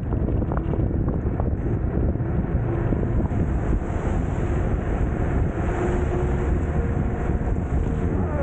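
Wind buffeting the microphone while riding an electric bike, a steady low rumble, with a faint steady whine from about two and a half seconds in.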